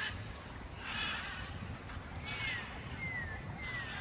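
Outdoor ambience: a steady low rumble like wind on the microphone, with a few brief distant calls of voices and some short sliding chirps.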